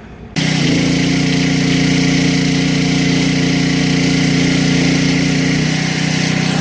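An engine or motor running steadily with an even hum, cutting in abruptly about a third of a second in.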